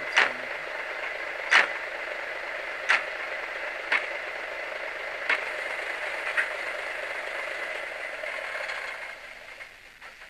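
Sound decoder of an N gauge Class 108 diesel multiple unit model playing its diesel engine sound through a tiny speaker, running steadily and then dying away near the end as the engine shuts down. Six sharp clicks sound over the first two-thirds, one every second or so.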